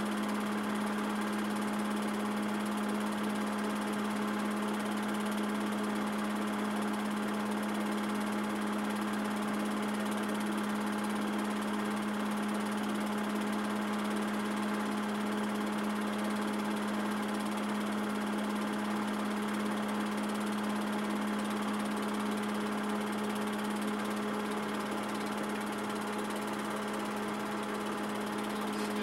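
Steady machine hum: one constant low tone with fainter overtones above it over a light hiss, unchanging throughout.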